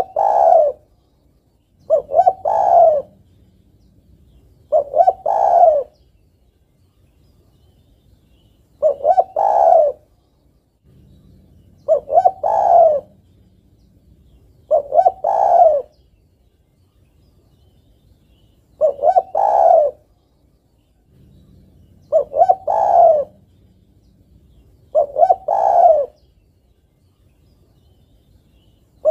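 Female spotted dove cooing again and again. Each phrase is about a second long, a couple of quick short notes ending in a longer coo, and the phrases repeat about every three seconds. This is a female calling for a male.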